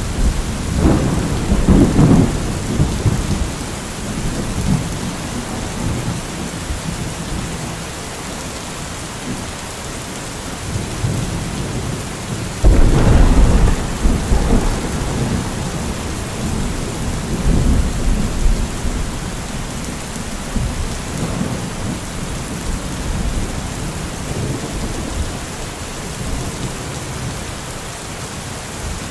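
Steady rain falling, with rolling thunder: a rumble in the first few seconds, a louder rumble a little before the middle, and lighter rumbles after it.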